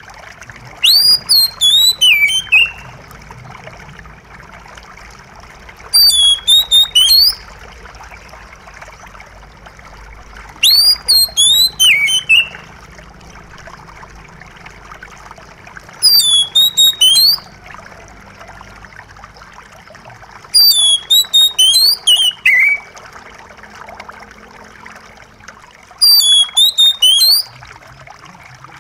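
Oriental magpie-robin singing: six short phrases of high, quick whistled notes, one about every five seconds, over a steady trickle of running water.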